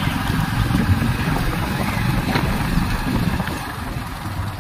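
Wind buffeting the microphone over the low rumble of a moving vehicle's engine, with the camera riding along a road.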